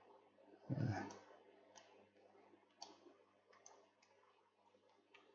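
Computer mouse clicking a few times, sharp and faint, as an on-screen object is dragged in a CAD program, with a brief soft noise about a second in.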